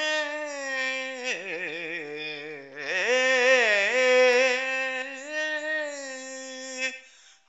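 A voice singing a Tamil devotional hymn to Ganesha, holding long drawn-out vowel notes with wavering, sliding ornaments in Carnatic style. The line fades out about seven seconds in.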